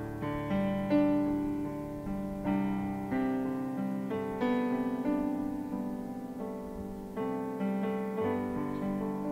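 Piano-voiced keyboard playing slow chords, each struck and left to fade, with the loudest strike about a second in.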